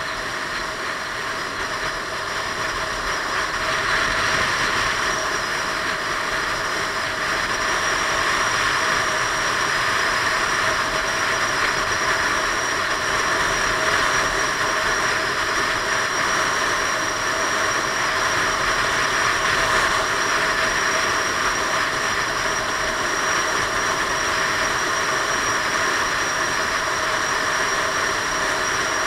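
Piaggio Beverly 500 maxi-scooter cruising at road speed: a steady hiss of wind rushing past the helmet-mounted camera over a constant engine and drivetrain drone, getting slightly louder about four seconds in.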